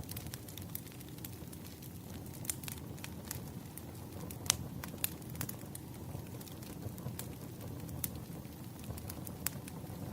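Wood fire burning, a steady low rumble of flames with irregular sharp crackles and pops from the logs, one louder pop about halfway through.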